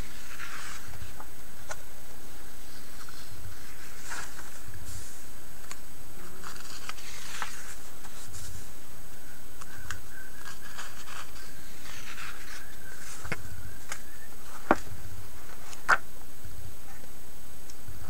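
Glossy pages of a thick paperbound catalog being turned and handled: soft, scattered paper rustles and scrapes, with two short sharp snaps about a second apart near the end.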